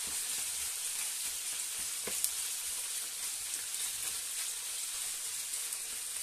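Chicken pieces sizzling steadily in hot olive oil in a non-stick frying pan as they brown, a steady high hiss, with a couple of faint clicks about two seconds in.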